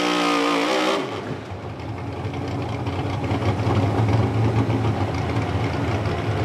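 Outlaw 4x4 pulling truck's engine running at high revs, then the throttle is released about a second in and the revs fall away to a loud, uneven idle as the truck comes to rest at the end of its pull.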